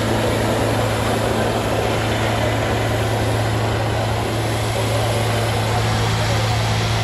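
Diesel tractor engines running hard and steady under full load during a tractor tug-of-war, a green John Deere and a blue tractor pulling against each other: a constant low drone that holds one pitch throughout.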